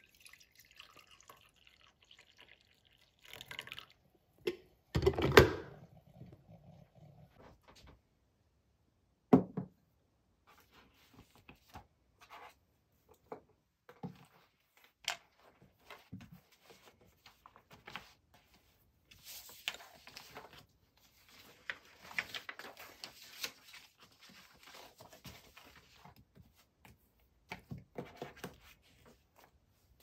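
Filter coffee poured from a glass carafe into a ceramic mug, followed by a heavy clunk about five seconds in and another about nine seconds in. After that come books and papers handled on a desk: scattered light taps, and a longer stretch of rustling in the second half.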